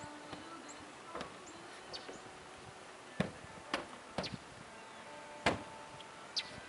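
Horse hooves knocking on a horse trailer's ramp and floor as a filly steps about: a handful of separate knocks, the loudest about five and a half seconds in. Small birds chirp briefly now and then.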